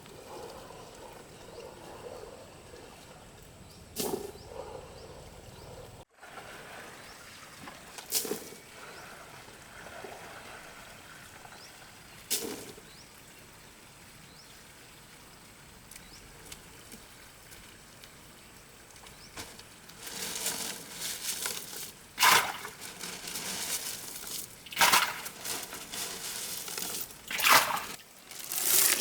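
Water sloshing and splashing: a low background wash with a few separate sharp splashes in the first part, then, from about two-thirds of the way in, a run of louder, repeated splashes.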